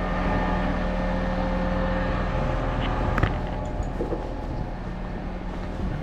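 Heavy truck engine running steadily at a constant speed, with a short knock about three seconds in.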